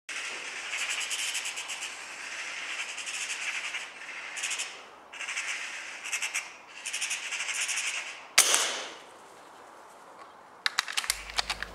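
Eurasian magpie's rattling chatter in repeated bursts, then a single loud shot about eight seconds in, followed near the end by a quick run of sharp clicks.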